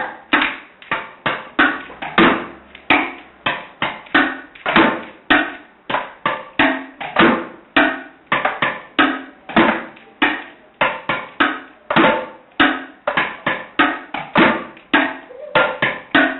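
Improvised drumming on plastic buckets and barrels struck with sticks, a steady beat of sharp knocks at about three a second.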